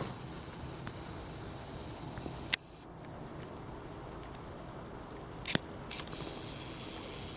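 Insects droning, a steady high-pitched buzz over low outdoor rumble. Two sharp clicks cut in, one a little over two seconds in and one near the middle.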